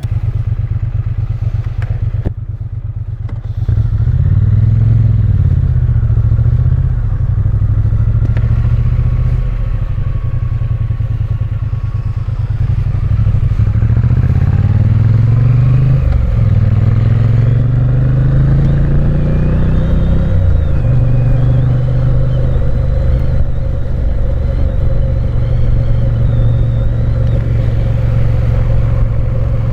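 Triumph Bonneville's parallel-twin engine pulling away and accelerating through several gears, its pitch climbing and dropping back at each shift, then running at a steady cruise for the last third.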